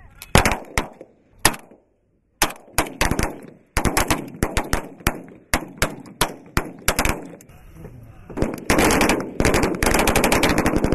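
Automatic gunfire from soldiers shooting at targets: short strings of rapid shots with brief gaps, turning into dense, near-continuous fire from about eight and a half seconds in.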